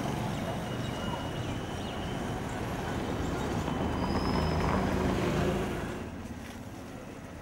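Street traffic noise: a steady rumble of passing vehicles that swells about four seconds in and drops off shortly before the end.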